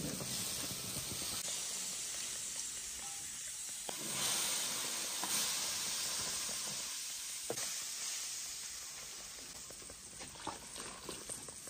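Spicy broth sizzling and bubbling hard in a large cast-iron wok, a steady hiss that swells about a third of the way in and slowly fades toward the end. A few light metal utensil clinks near the end.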